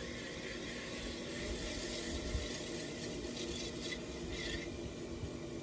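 Potter's wheel spinning with a steady low motor hum, while wet hands press and rub slippery clay as it is centered, making a soft, wet hissing rub.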